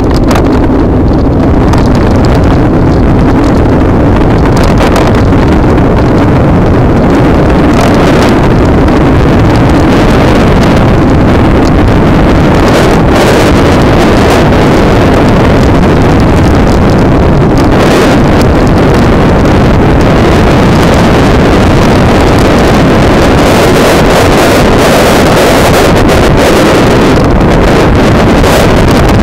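Loud, steady rush of wind and road noise on the microphone of a Daymak Kingston 72-volt electric scooter being ridden, with gusty surges now and then.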